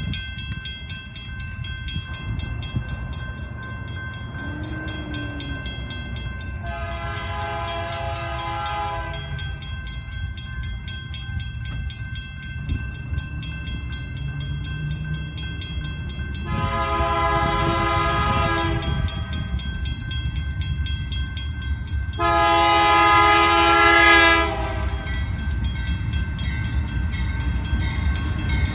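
Approaching BNSF diesel freight locomotives sound a multi-chime air horn in three long blasts, each about two to two and a half seconds. Under the horn the low rumble of the oncoming train grows steadily louder.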